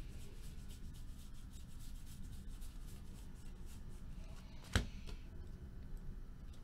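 A stack of 2016 Panini Classics football cards being flipped through by hand, the cards sliding and flicking against each other in a run of faint soft ticks, with one sharper click about five seconds in.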